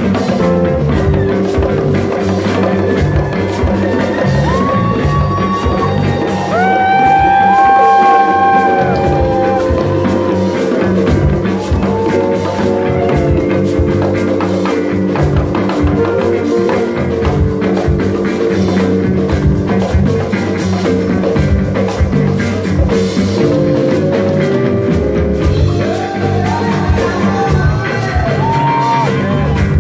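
Live band music: electric guitars, a drum kit and a pair of djembe-style hand drums playing a steady groove, with a lead line of long held notes about a quarter of the way through.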